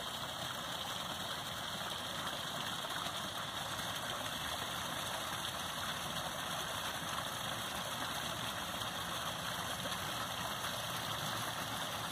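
Small pond waterfall splashing steadily into a koi pond, an even, unbroken hiss of falling water.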